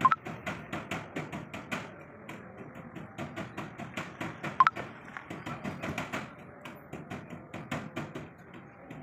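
Rapid, irregular clicking and knocking, several a second, with two short high beeps, one at the start and one about halfway through.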